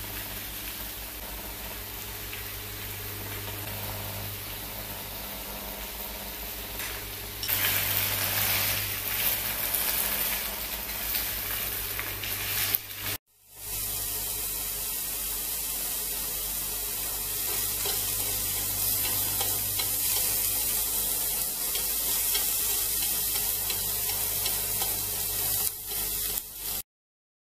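Carrots and mushrooms sizzling as they are stir-fried in a frying pan. A quieter hiss at first grows into louder sizzling about seven seconds in. After a brief break the sizzling continues steadily and cuts off near the end.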